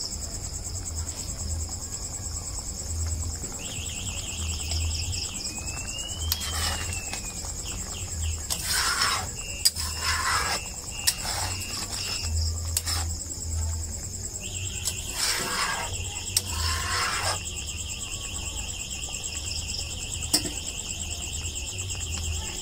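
A spatula stirring simmering fish gravy in a kadhai, scraping through it and knocking sharply against the pan a few times, over steady high chirping of insects.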